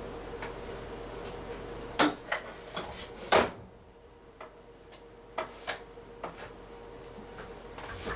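Scattered handling clicks and knocks, a few sharp ones clustered about two to three and a half seconds in and fainter ones later, over a steady faint hum.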